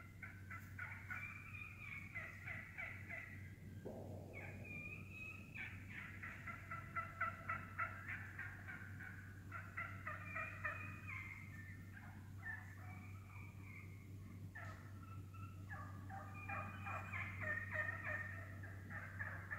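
A flock of eastern wild turkeys calling in overlapping bursts of quick, short notes: clucking and purring, with brief pauses between bursts.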